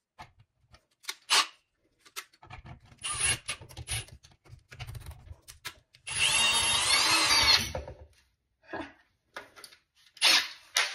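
Cordless drill running in short bursts, its motor pitch rising and falling, with a screw clamped in its chuck standing in for a flathead bit on a wall outlet's screw. Light metal clicks come between the runs, and a short rattle comes near the end.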